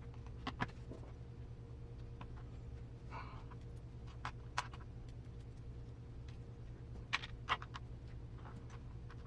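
Scattered light clicks and taps of small RC gearbox parts (thin spacers, gears and the plastic housing) being handled and fitted by hand, over a steady low hum.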